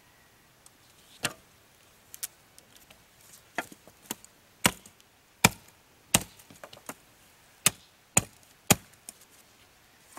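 Wood being chopped: about nine sharp, separate strikes at uneven spacing, roughly one a second.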